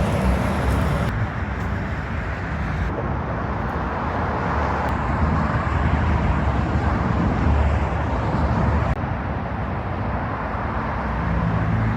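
Steady road traffic noise from freeway vehicles passing, a continuous rush of tyres and engines.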